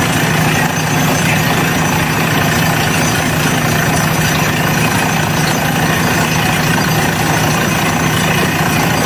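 Borewell drilling rig running steadily at work: a loud, continuous machine drone with a fast, even rattle.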